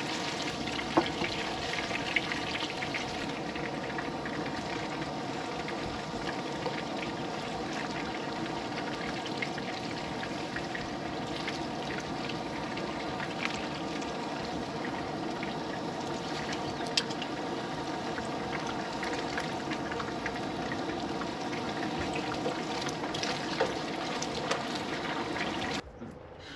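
Food frying in hot oil in a pan, a steady sizzle with scattered small pops and crackles; it cuts off abruptly near the end.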